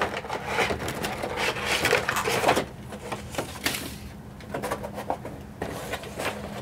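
A cardboard toy box and a clear plastic tray of magnetic tiles being handled: rustling, sliding and light knocks, busiest in the first two and a half seconds, then a few scattered clicks.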